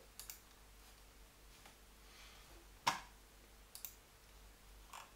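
A few short, sharp clicks of a computer mouse, spaced about a second apart, the loudest about three seconds in, over quiet room tone.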